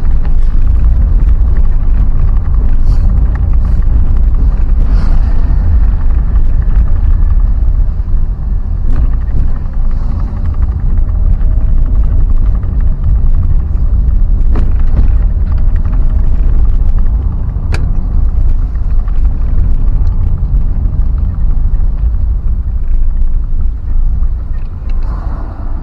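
Loud, steady low rumble of a vehicle travelling on the road, with a few faint ticks.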